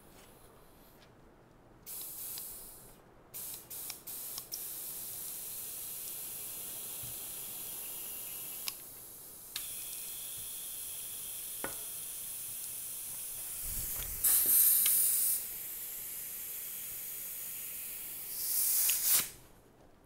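Compressed air hissing from an air compressor's inflator into a tubeless gravel tire to seat it on the rim. It comes in a few short bursts at first, then a steady hiss, louder for a moment about two-thirds in and again just before it cuts off, with a few sharp clicks along the way.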